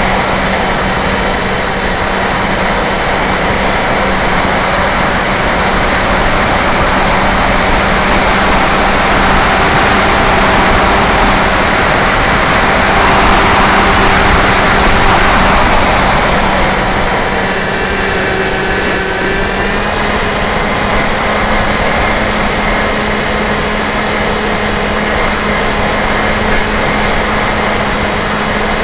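Electric motor and propeller of a Dynam Hawk Sky RC plane picked up in flight: a steady drone under a rush of wind noise. The rush swells midway through, and the motor's pitch shifts, then settles a little higher near the end.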